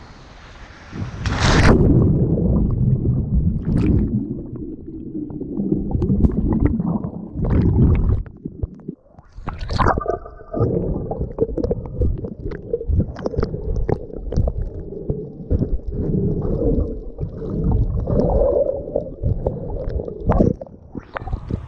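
A loud splash of a body plunging into the sea about a second and a half in, then muffled underwater rushing and bubbling of churned seawater, full of scattered clicks and knocks.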